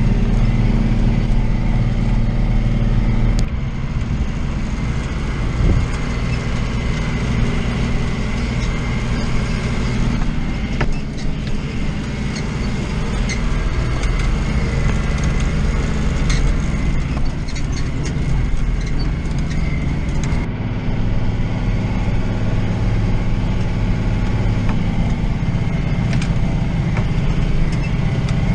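John Deere 2940 tractor's diesel engine running steadily under load while pulling a hay rake. The engine note changes abruptly about three and a half seconds in and again about twenty seconds in.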